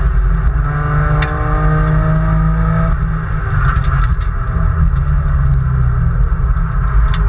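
Nissan Skyline R33 GT-R's twin-turbo straight-six under hard acceleration, heard from inside the cabin over a heavy road rumble. Its revs climb steadily for about three seconds, break at a gear change, then pull on at lower revs.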